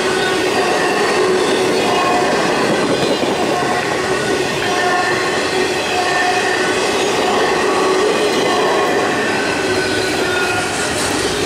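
Intermodal freight train rolling past: a steady loud rumble of wheels on rail, with short squeals from the wheels coming and going every second or so.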